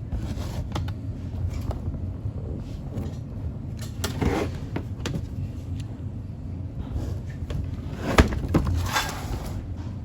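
Scattered clicks and knocks of handling, with louder clattering about four seconds in and again about eight seconds in, over a steady low rumble.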